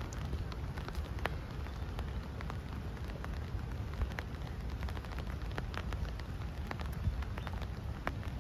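Outdoor ambience: a steady low rumble with scattered light, irregular ticks through it.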